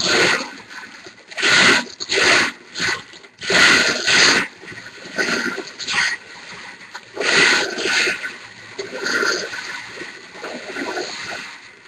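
Marbles tumbling and rattling inside a hand-turned bingo cage as it is spun to mix them, coming in repeated surges about a second apart.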